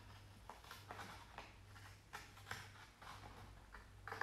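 Scissors cutting slits into scrapbooking paper, a series of faint short snips about every half second.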